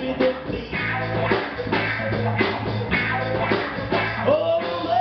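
A live band playing a blues song: drums, electric guitar and a long held bass note, with the singer's voice coming back in near the end.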